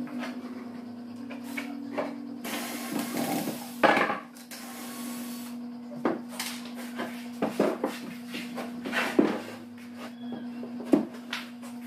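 Knocks and bumps of tools and plywood panels being handled while a plywood cabinet is assembled: one loud knock a few seconds in and a string of sharper knocks in the second half. A steady low hum runs underneath, and a hissing noise lasts about three seconds in the first half.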